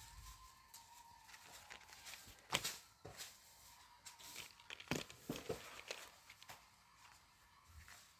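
Plastic packaging and small lip tint tubes being handled: light, irregular crinkling with scattered clicks and taps, the sharpest about two and a half seconds in and a cluster around five seconds in.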